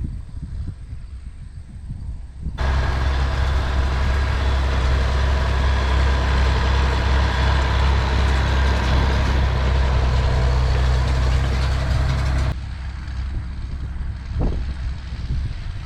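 Tractor engine running steadily. It is much louder from about two and a half seconds in until near the end, where it drops off suddenly.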